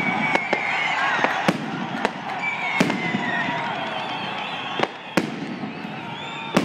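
Aerial firework shells bursting in sharp bangs at irregular intervals, several over a few seconds and some close together, over a continuous noisy background.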